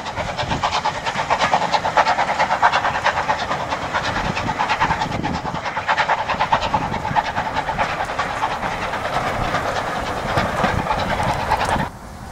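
Steam train running along the line: a steady hiss with fast, even clatter. It cuts off suddenly near the end.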